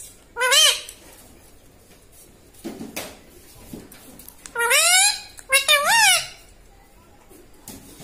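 Rose-ringed parakeet (Indian ringneck) calling in short, shrill, rising-then-falling calls: one just after the start, then a longer rising call about halfway through, followed at once by a call that swoops up and down.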